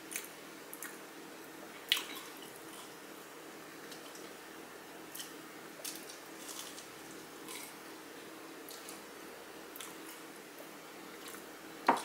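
Close-up chewing and biting of crunchy Flamin' Hot Cheeto-crusted fried pickles: scattered wet crunches and mouth clicks, with a louder crunch about two seconds in and a sharp knock at the very end.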